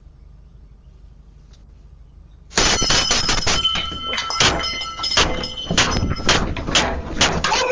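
A low hum, then about two and a half seconds in a sudden loud run of crashing and breaking: sharp impacts about two a second with ringing, shattering sounds over them.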